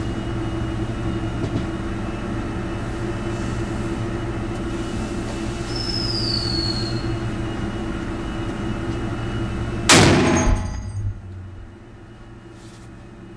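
A Barrett M107 .50 BMG semi-automatic rifle fires a single shot about ten seconds in, a sharp crack with a short ringing tail. Before it there is a steady droning hum.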